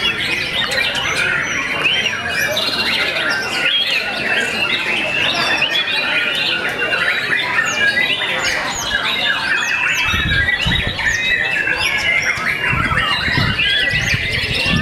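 Caged white-rumped shamas (murai batu) singing together in a dense, continuous chorus of overlapping whistles, chirps and rapid trills. Some low rumbling comes in during the last few seconds.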